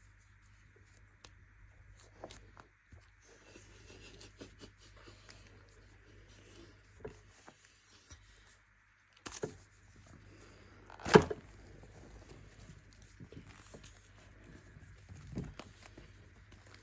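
Baking soda being crushed: sparse soft crunches and crackles, with one loud sharp crunch about eleven seconds in.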